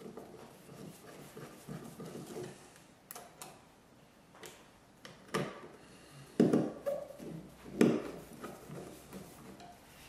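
Robertson screwdriver driving the mounting screws of a single-pole light switch into its wall box: scattered small metal clicks and scrapes, with a few louder knocks in the second half as the switch is seated.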